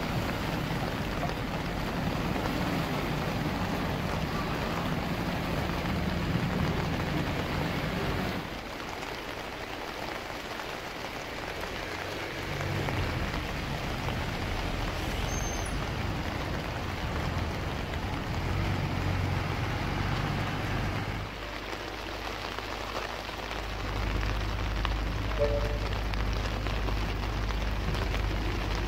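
The River Roch in flood, fast high water rushing through its walled town-centre channel with a steady wash of noise. Underneath, the low hum of bus and traffic engines comes and goes.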